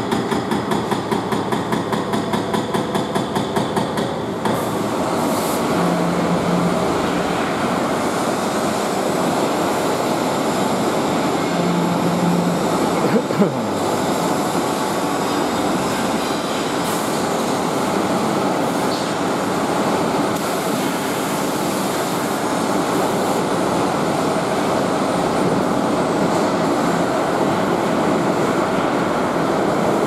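Excavator-mounted hydraulic breaker hammering a brick wall with rapid, evenly spaced blows that stop about four seconds in. After that a steady, dense rumble and clatter of the working excavator and breaker, with one sharp crack about thirteen seconds in.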